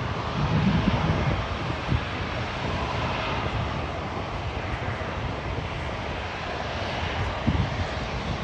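Airbus A350's Rolls-Royce Trent XWB turbofan engines at taxi power: a steady jet whoosh with a low rumble underneath.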